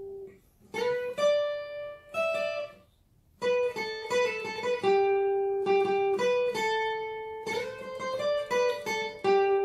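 Steel-string acoustic guitar plucked as a single-note lead line high on the neck, notes on the second and third strings around the 10th to 15th frets. It breaks off briefly twice in the first three seconds, then runs on as a steady phrase.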